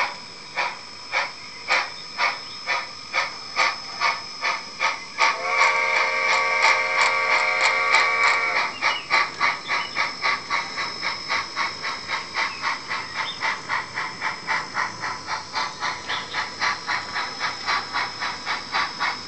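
Tsunami DCC sound decoder in an HO scale model NSWGR Standard Goods steam locomotive playing steam exhaust chuffs through its small speaker, at about two a second. About five seconds in, one long steam whistle blast of about three seconds sounds over them; afterwards the chuffs quicken to about three a second and are softer.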